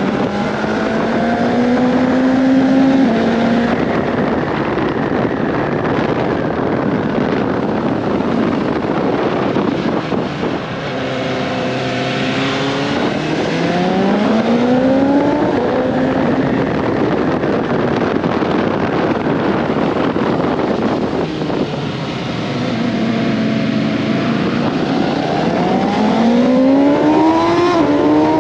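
BMW S1000 XR's inline-four engine pulling hard three times, its pitch climbing and dropping back at each upshift, with steady cruising between the pulls. A dense rush of wind noise runs under the engine throughout.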